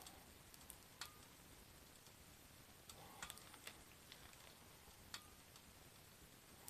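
Very faint, irregular ticks and small pops from shrimp shumai cooking on an electric hot plate, a handful of separate clicks over near silence.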